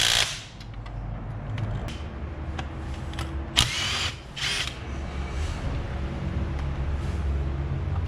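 A power tool on the strut and spring assembly, running in two short bursts about three and a half and four and a half seconds in, with scattered metallic clicks.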